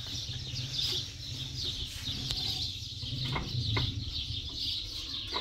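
Birds, likely poultry, chirping and peeping continuously over a steady low rumble, with a couple of faint knocks about halfway through.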